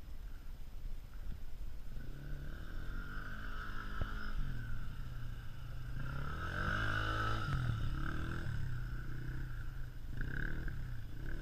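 The small single-cylinder engine of a 2012 Polaris Outlaw 90 youth quad running, its revs rising and falling several times as the rider speeds up and slows down.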